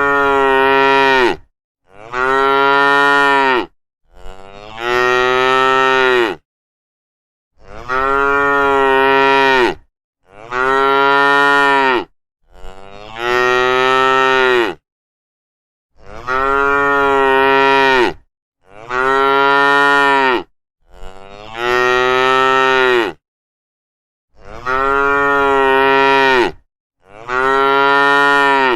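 Cattle mooing: a run of about eleven long, near-identical moos of about two seconds each, separated by short gaps of complete silence.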